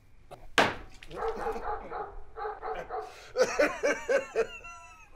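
A dog whimpering and whining in a run of short, high, pitch-bending cries that pulse about four times a second near the middle and trail off into thin falling whines. A sharp knock comes about half a second in.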